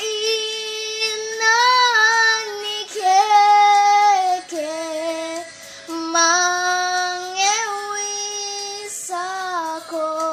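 A young girl singing a children's folk song alone, with no accompaniment, in long held notes that slide gently from one to the next.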